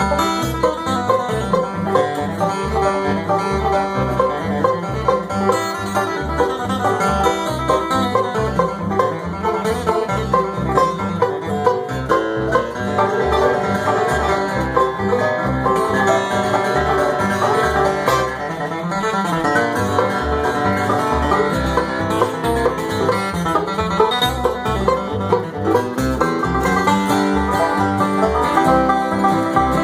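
Bluegrass band playing an instrumental tune: banjo picking and guitar over a steady, even beat.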